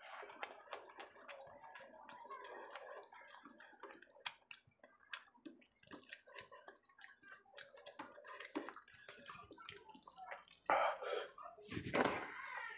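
Close-up wet eating sounds: a hand squishing and mixing rice with curry gravy, and chewing with many small wet mouth clicks. Two louder wet sounds come near the end.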